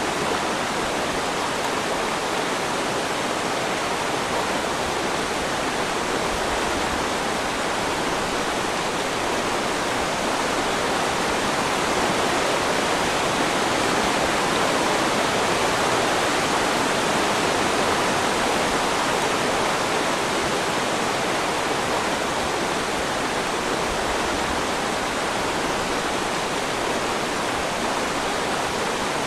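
Steady, even rushing roar of a waterfall, with no change in level.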